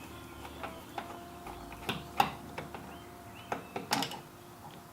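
Irregular light clicks and taps of a screwdriver and hard plastic as the screw holding a Mazda Miata NA's inside door-handle bezel is backed out. The loudest click comes a little past two seconds in.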